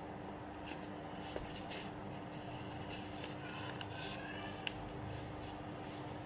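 Sheet of origami paper handled and folded by hand, with light rustles and crinkles and a sharp crackle about four and a half seconds in, over a steady low hum.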